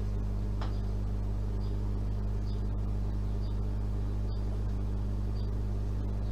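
A steady low hum that holds the same level throughout, with nothing else distinct in it.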